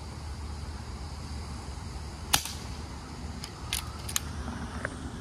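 Brocock BRK Ghost PCP air rifle firing a single sharp shot about two seconds in, followed a second or two later by a few lighter clicks from the rifle's action being worked.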